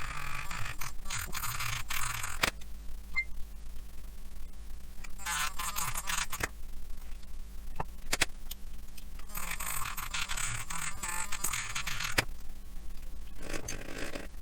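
A small hand file rasping on a model kit part in four runs of quick strokes, with pauses and a few sharp clicks in between, as material is taken off so the part clears a hinge.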